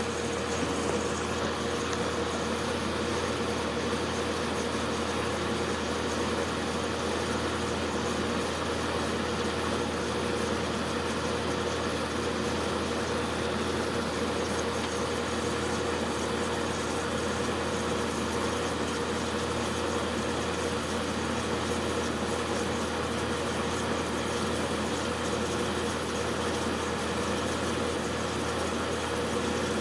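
Magic Chef dehumidifier running with its compressor and fan both on: a steady hum with one constant tone and the rush of air. The compressor is running normally and the evaporator coil is cooling down.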